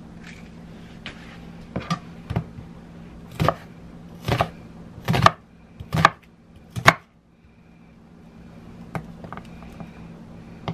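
Kitchen knife chopping on a cutting board: a run of single cuts about a second apart, growing louder and then stopping, followed by a few lighter taps near the end.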